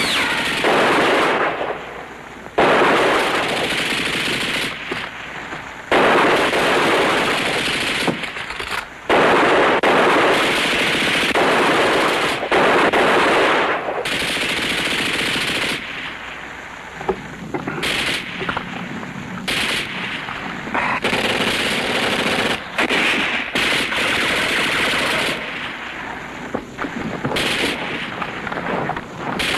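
Machine-gun fire in long bursts of several seconds each, broken by short pauses.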